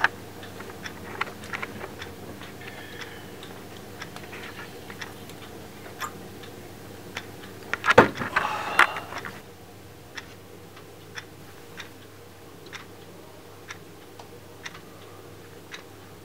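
A clock ticking about once a second over a steady low hum. About halfway through, a loud sharp thump is followed by a brief rush of noise.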